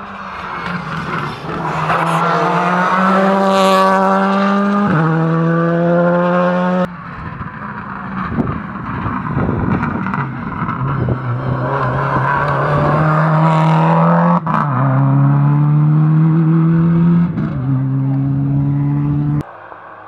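Rally cars at full throttle, engine pitch climbing through each gear and dropping at quick upshifts: first one car shifting up about five seconds in, then, after an abrupt change, a Subaru Impreza rally car's flat-four approaching and accelerating hard, shifting up twice before the sound stops suddenly near the end.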